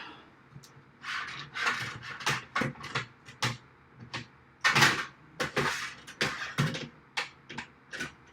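A series of irregular knocks, clicks and short scrapes, the loudest a little under five seconds in: parts and tools being handled and set down on a rack-case build.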